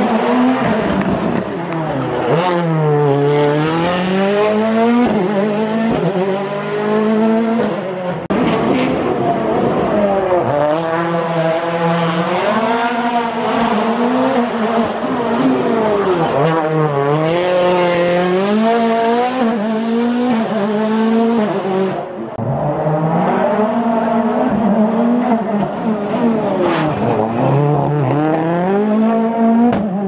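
Rally car engines revving hard through a tight bend, one car after another: the pitch falls as the driver brakes and shifts down, then climbs again and again through the gears as the car accelerates away.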